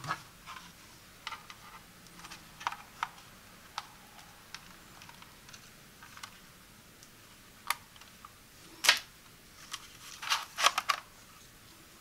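Light clicks and taps of hard plastic as a smoke alarm's housing and wire harness are handled, with a louder run of plastic clicks near the end as the mounting plate is twisted off the alarm.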